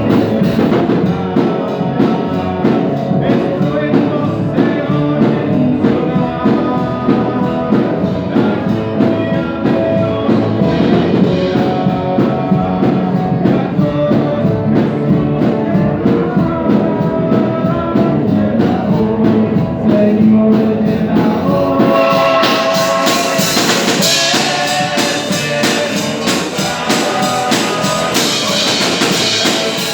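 Christian pop-rock song with drum kit, guitar and singing. About two-thirds of the way through, the band grows fuller and brighter.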